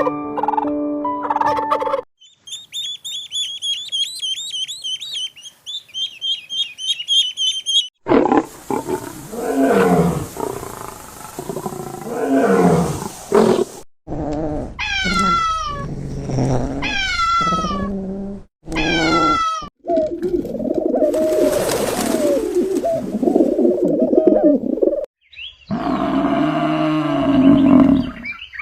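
A string of different animal calls cut one after another: first high rapid chirping, then rough growls and roars of big cats, then several loud calls that fall steeply in pitch, and pitched calls near the end.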